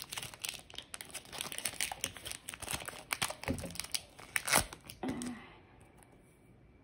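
Foil wrapper of a Panini baseball card pack crinkling and tearing as it is opened by hand: a quick run of sharp crackles that dies away about five seconds in.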